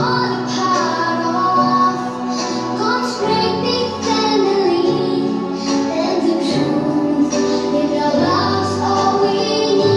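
A song playing: a sung melody in children's voices over an instrumental backing with a steady bass line.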